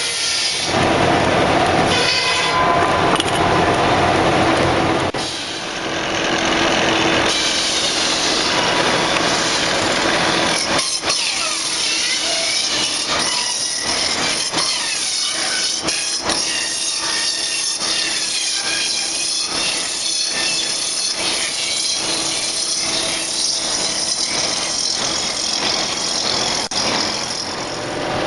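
Mill saws cutting pine barrel stock: the shingle and head saw cutting a pine block, then, from about seven seconds in, the head rounding saw cutting the round, bevelled edge of a barrel head, with a high whine that wavers in pitch.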